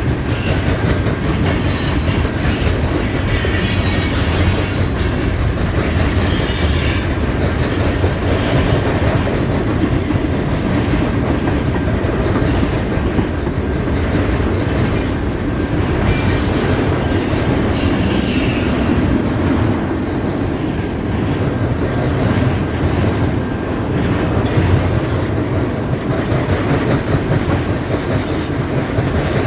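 Freight train cars rolling steadily past, wheels rumbling and clattering on the rails, with high-pitched wheel squeal coming and going.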